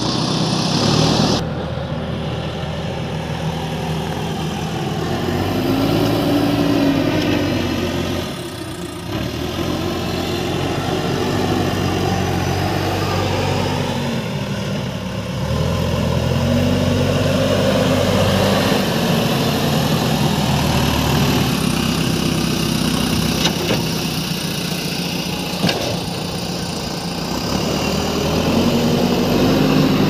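JCB 3DX backhoe loader's diesel engine running under load, its note rising and falling repeatedly as the machine is revved and driven.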